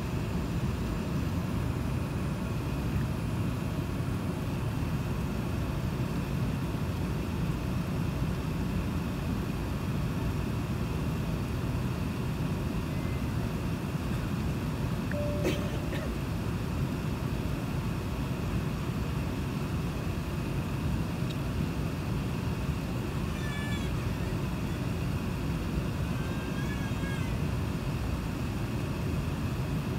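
Steady low cabin rumble inside an Airbus A380 taxiing, from its idling engines and the cabin air system, with a single sharp click about halfway through and a few faint, wavering high sounds near the end.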